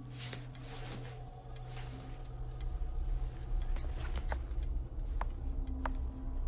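Small metallic clinks and rattles, the kind buckles and fittings make, as a backpack is picked up and swung onto a shoulder. Underneath runs a steady low hum that deepens into a rumble about halfway through.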